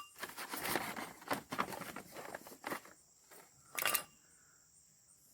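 Cloth rustling and handling noises as a shop rag is wrapped around an engine part, with a short louder scrape just before four seconds in.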